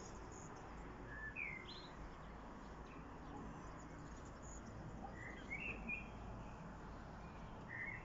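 Songbirds singing: short, scattered whistled notes and chirps, a few at a time, over a faint, steady low background rumble.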